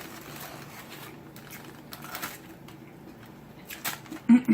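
Faint, scattered clicks and soft rustles from eating and handling food, with a brief voice sound near the end.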